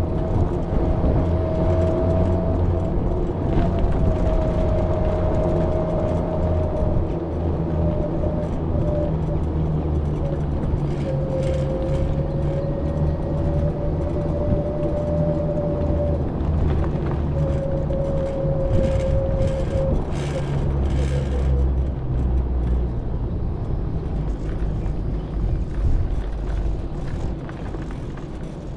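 A small vehicle rolling slowly along a paved road, giving a steady low rumble. A thin whine wavers in pitch over it and fades out a little after the middle.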